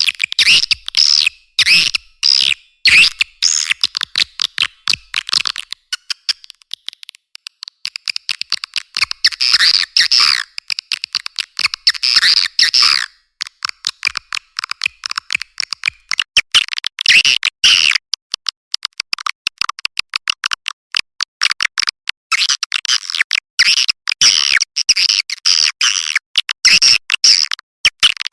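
Swiftlet lure call (suara panggil) for edible-nest swiftlet houses: rapid high-pitched swiftlet twittering chirps and clicks, filtered so that nothing sounds below the mid range. It comes in dense bursts broken by sparser stretches.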